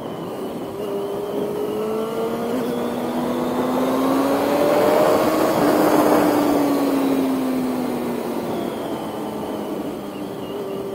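Motorcycle engine pulling up through the revs for a few seconds and then easing off, under a rush of wind on the microphone that swells and fades with the speed.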